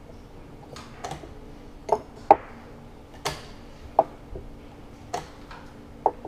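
Sharp wooden knocks of rapid chess play: chessmen set down on a wooden board and a captured piece put down on the table. The knocks are irregular, about nine in six seconds, the loudest a little over two seconds in.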